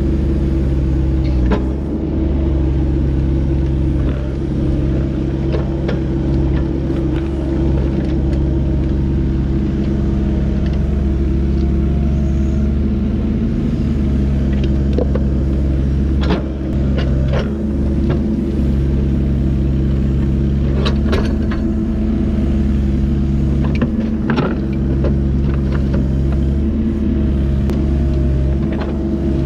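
Kubota rubber-tracked excavator's diesel engine running steadily, with scattered short clanks and knocks over it.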